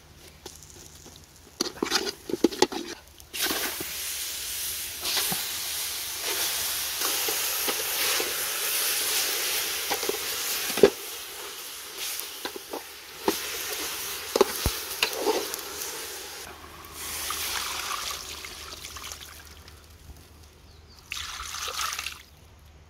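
Liquid pouring and splashing into a metal cooking pot for long stretches, with a few sharp knocks and clinks of a ladle against the pot.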